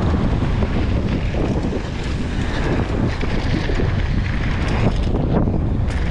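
Wind buffeting the action-camera microphone: a loud, steady, rumbling rush with constant flutter.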